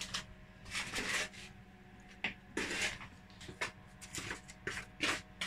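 Kitchen handling noises: short scrapes, rubs and light clatters of baking things and utensils being moved about, over a low steady hum.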